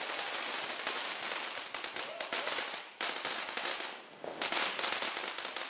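Several ground fountain fireworks hissing and crackling together as they spray sparks, a dense spitting rush of tiny pops. It dips and surges back twice, then fades near the end.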